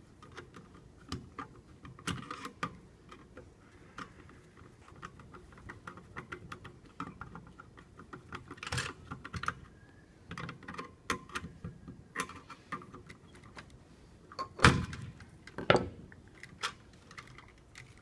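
Scattered small clicks and taps of a screwdriver and wires against a steel electrical box while an EMT connector's screw is tightened down, with two louder knocks near the end.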